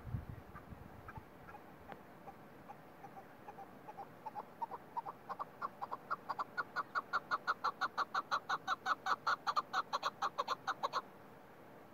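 Chukar partridge calling: a run of clucking notes that starts faint, builds to loud, rapid chuck-chuck calls at about four or five a second, then stops abruptly near the end.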